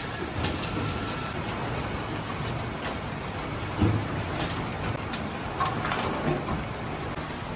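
Automated bolt-tightening machine running on a timing-chain cover: a steady mechanical hiss and hum with a few light clicks.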